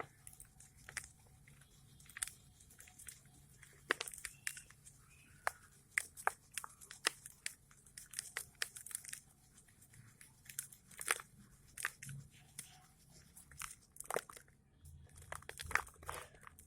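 Dry red sand crunching and crumbling in many irregular, sharp, gritty crackles.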